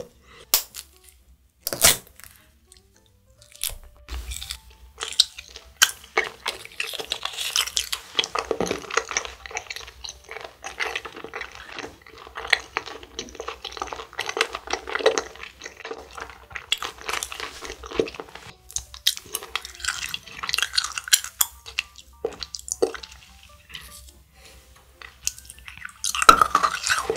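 Close-miked chewing of candy, a chocolate shell and gummy eyeball jelly, with irregular crunches and sticky mouth clicks.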